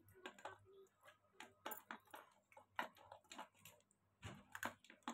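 Close-miked crunching of hard white sticks being bitten and chewed: an irregular run of short, crisp cracks, the sharpest about three seconds in and again near four and a half seconds.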